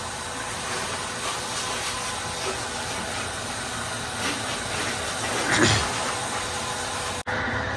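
Steady hiss of a water jet from a hose spraying against the muddy wheel arch, tyre and body of an SUV, rinsing off the dirt before a shampoo wash. The spray swells louder for a moment about five and a half seconds in.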